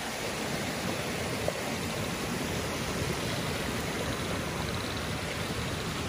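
Water from small waterfalls and cascades rushing over rocks into a creek: a steady, even rush.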